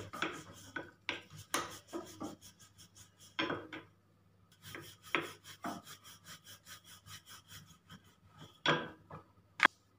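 Wooden rolling pin rolling out a thin round of momo dough on a countertop: a run of repeated rolling strokes, a short pause about four seconds in while the dough is turned, then more strokes and one sharp knock near the end.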